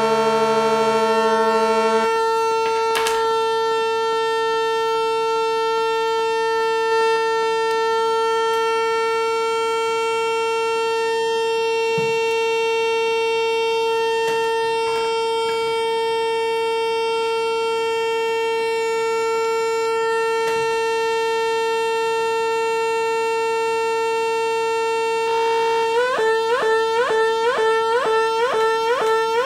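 Homemade Negistor transistor oscillator synth on a breadboard droning: a chord of steady electronic tones thins about two seconds in to one steady buzzy tone, with a few clicks as the pots and wires are handled. Near the end the pitch starts warbling in rapid repeated swoops, about three a second, as the LFO oscillator modulates it.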